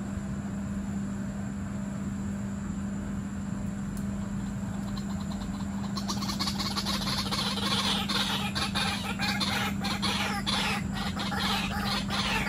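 Chạch ré birds calling in a rapid, dense clucking chatter that starts about six seconds in and grows louder, over a steady low hum.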